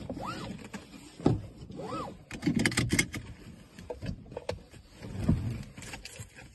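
Car seatbelt pulled out across the body and fastened, with webbing and clothing rustling and a cluster of sharp clicks about two and a half to three seconds in as the buckle latches.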